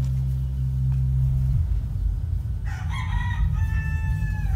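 A rooster crows about three seconds in: one long, held call that bends down at its end. Underneath is the steady deep bass of a subwoofer playing music, with only the low end coming through.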